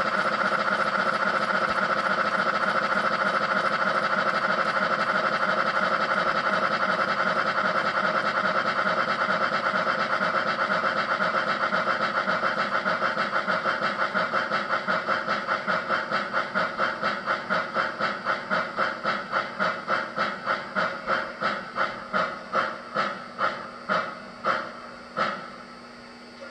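MTH Protosound 3 steam sounds from a large-scale Hudson locomotive, chuffing in time with the wheels as it slows from high speed to a stop on rollers. The chuffs come so fast at first that they run together. About halfway through they separate into distinct beats that grow steadily slower. The last chuff comes near the end, leaving a low steady hum.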